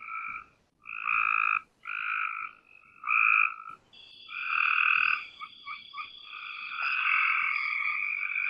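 Cope's gray tree frog calls: short, sharp trills repeated about once a second. From about four seconds in, several calls overlap into a denser chorus, with a thin steady high tone above them.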